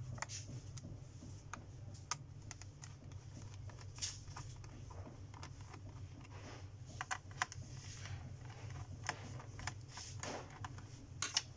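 Irregular small clicks and scrapes of fingers and a pry tool working at the rubber foot strip and seam of an HP Envy 15 laptop's bottom cover, over a steady low hum.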